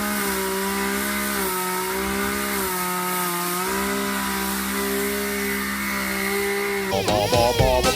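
Chainsaw running at high revs, its pitch dipping briefly twice as the chain bogs into the wood and then picking back up. Swing-style music comes in about seven seconds in.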